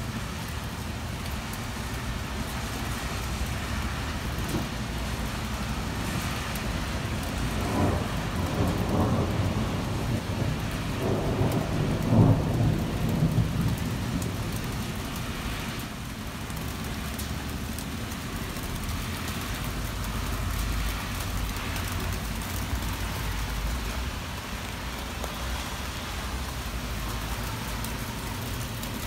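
Heavy rain falling steadily, with a roll of thunder that swells about a quarter of the way in, is loudest just before the middle, and fades soon after.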